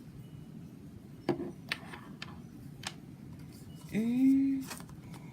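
Light clicks and taps of watch packaging and accessories being handled and set down, a handful of separate small knocks, with a short hummed 'mm' from a woman's voice about four seconds in.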